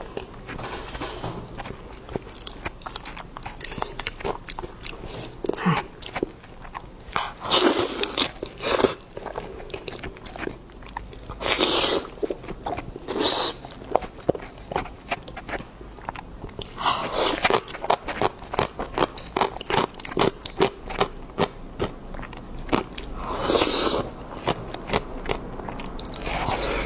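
Close-miked eating: chewing and wet mouth sounds of someone eating spicy braised pig brains, with several louder, longer bursts spread through.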